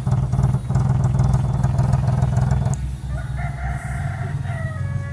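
Daihatsu Hijet 1000 engine running steadily. About three seconds in, a rooster crows once, its call falling in pitch at the end.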